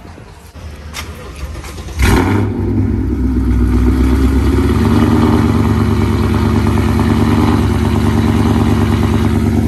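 A 2014 Ford Mustang GT's 5.0 V8 starts up about two seconds in, then settles into a loud, steady, loping idle. The exhaust is uncorked by catless JBA longtube headers and an off-road X-pipe.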